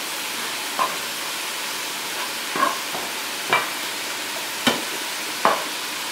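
Vegan beef crumbles, onions and vegan butter spread frying in a nonstick skillet with a steady sizzle. A wooden spatula stirs them, scraping and knocking against the pan about five times.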